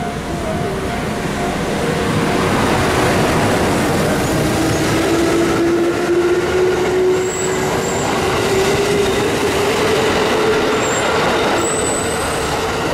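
Six-car Kintetsu electric train (1400 and 2410 series cars) pulling out of the station and accelerating past, wheels running on the rails with a motor whine that rises slowly in pitch as it gathers speed.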